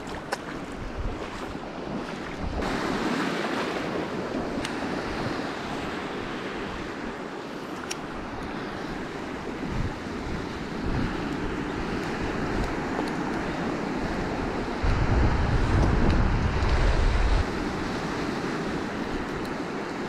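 Small sea waves breaking and washing over a rocky, weedy shore, a steady rushing of surf. About fifteen seconds in, a gust of wind buffets the microphone with a low rumble for two or three seconds, the loudest part, then drops off abruptly.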